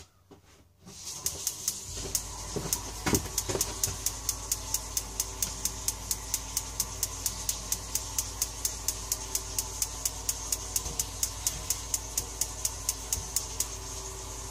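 Tankless propane water heater's electronic igniter sparking repeatedly, a steady rapid clicking of about four clicks a second over a steady hiss that starts about a second in.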